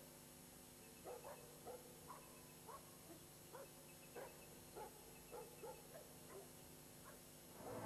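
A dog barking faintly: a string of short barks, about two a second, starting about a second in and stopping just before the end.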